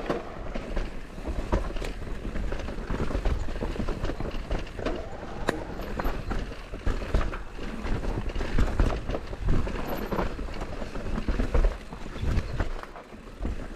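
Intense Tazer MX Pro electric mountain bike rolling down a dirt forest trail: tyre noise over dirt and roots with frequent irregular rattles and knocks from the bike over bumps, and a constant low rumble.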